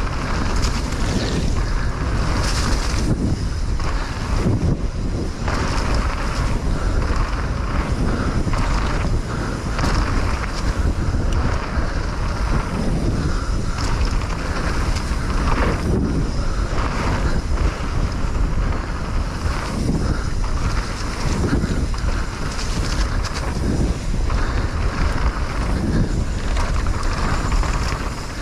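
Steady wind buffeting a camera microphone, with a heavy rumble and rattling from a mountain bike riding fast down a dirt trail.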